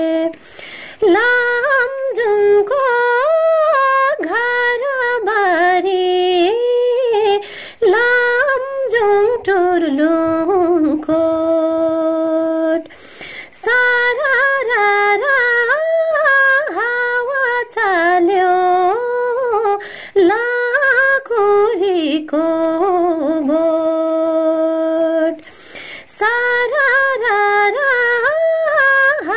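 A woman singing a Nepali folk song, her voice sliding between notes in ornamented phrases and holding long notes, with short pauses for breath between phrases.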